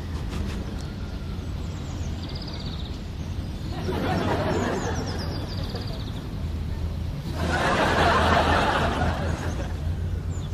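Audience laughter swelling twice, over outdoor ambience with birds chirping and a steady low hum.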